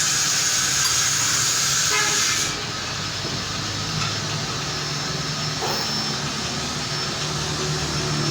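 Small Honda CD 70 motorcycle engine running with a steady low hum. A loud hiss cuts off after about two and a half seconds, and a thin, steady high-pitched squeal comes in about four seconds in, the rear wheel's brake-shoe noise.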